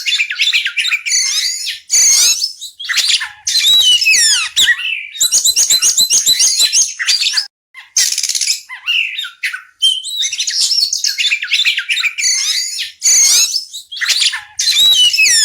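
Oriental magpie-robin singing a loud, varied song of whistled phrases and fast runs of repeated notes, breaking off briefly about halfway through.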